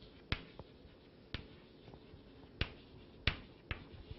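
Chalk tapping and clicking against a blackboard during writing: about six sharp, irregularly spaced clicks over a faint hiss.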